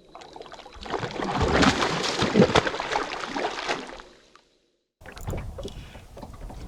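Water splashing and sloshing that fades in, peaks, and fades out over about four seconds. After a second of silence there is an abrupt switch to steady outdoor noise on a boat.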